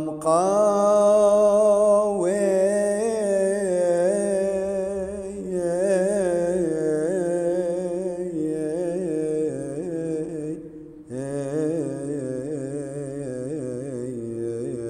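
A man singing a slow chant, holding long notes that waver and turn in ornaments. He breaks off briefly about eleven seconds in, then carries on.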